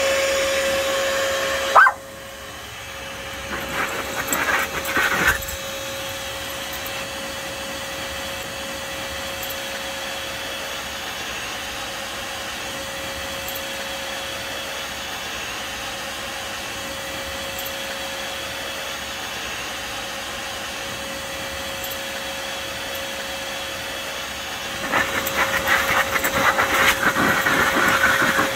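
Shop vac motor running with a steady whine and air hiss, while a miniature schnauzer barks and snaps at the air stream from its hose in bursts, about four seconds in and again from about twenty-five seconds in.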